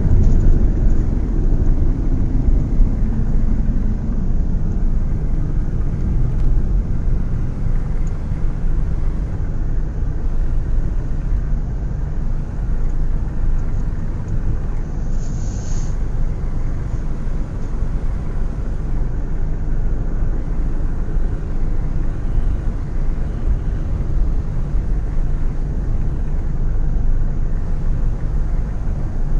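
Steady low rumble of heavy construction-vehicle engines, with a tone that falls in pitch over the first few seconds. A short high hiss comes about halfway through.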